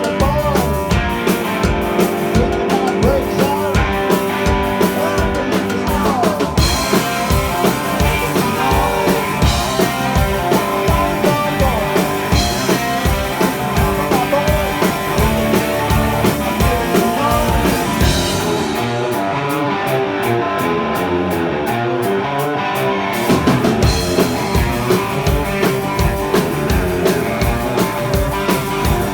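A rock band playing live: drum kit keeping a steady beat under electric guitars. For a few seconds about two-thirds through, the low drum hits drop out, then the full beat comes back.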